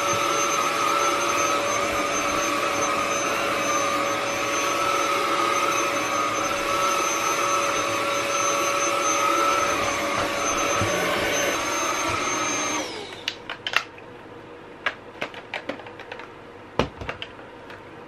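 Philips 3000 Series cordless stick vacuum (XC3131/01) running steadily while vacuuming a shag rug: a steady motor whine over rushing airflow. About 13 seconds in it is switched off and the whine winds down, followed by a few sharp plastic clicks and knocks as the vacuum is handled and taken apart.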